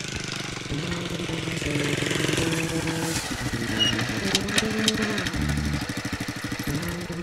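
Small underbone motorcycle engine running with a fast, even beat, mixed with background music.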